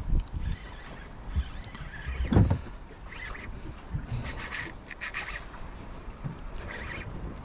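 Rubbing and bumping handling noise over a low rumble, with a loud bump a little over two seconds in, as a fishing rod is worked from a boat. A stretch of hissing noise follows about four seconds in and lasts about a second and a half.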